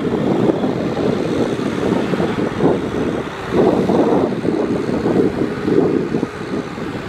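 Farm tractor's diesel engine running under load as it drags a rotary tiller through wet paddy mud, with wind buffeting the microphone.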